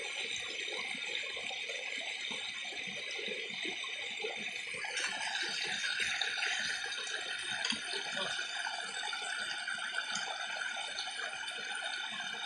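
Stream water gushing and splashing through a gap in a makeshift bamboo-and-debris dam, a steady rush that grows brighter about five seconds in.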